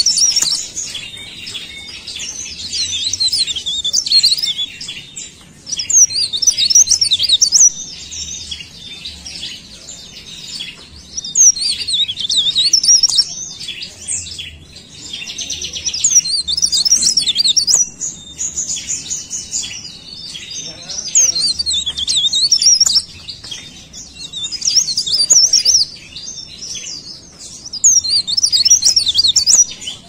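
Caged cikrak daun, a small leaf warbler, singing: bursts of rapid, high twittering phrases each a couple of seconds long, repeated over and over with short pauses between.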